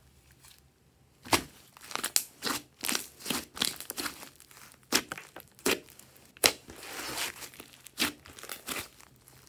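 Thick pink slime mixed with clay being squeezed and pressed by hand, giving a run of sharp wet clicks and pops, about two a second, as trapped air is squeezed out of it. The pops start after about a second.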